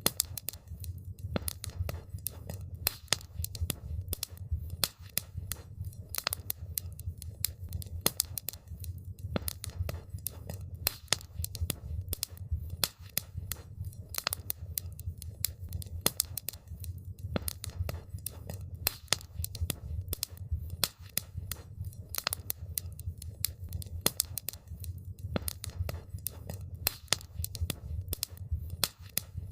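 Wood campfire crackling: dense, irregular pops and snaps over a steady low rumble of the burning fire.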